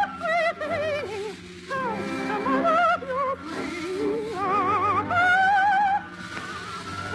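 Operatic soprano singing held notes with a wide vibrato over orchestral accompaniment, the melody rising and falling in long phrases.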